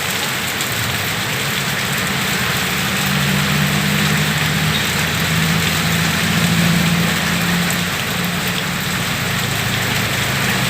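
Heavy rain falling steadily, with a steady low hum underneath that swells a little in the middle.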